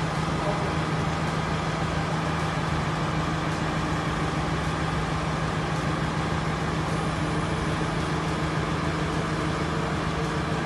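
Steady low mechanical hum, unchanging in pitch and level.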